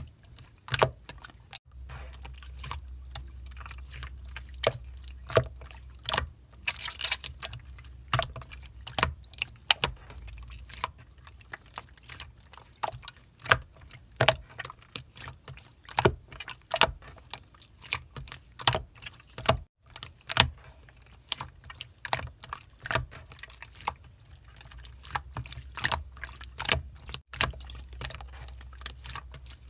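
Clear slime being pressed and squished by hand, giving irregular sharp pops and clicks, about one or two a second.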